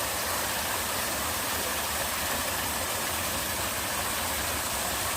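Mountain-stream waterfall pouring into its pool: a steady, even rush of falling water.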